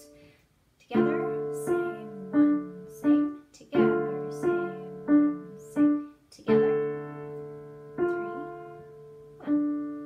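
Roland digital piano playing a simple beginner piece slowly with both hands: a left-hand open fifth on D and A held under a right-hand melody of single notes. The notes start about a second in at a steady, even pace and spread out into longer held notes near the end.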